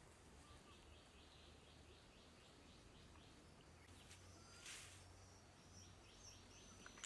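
Near silence with faint outdoor ambience: a thin series of quick, high chirps repeating about three times a second, and one brief rustle about two-thirds of the way through.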